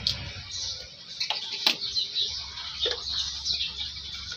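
Small birds chirping, short high chirps over and over, with one sharp click about a second and a half in.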